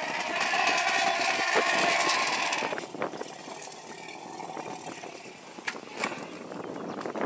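African elephant trumpeting, a brassy call with several held tones that stops about three seconds in. After it comes a quieter stretch with a few faint clicks.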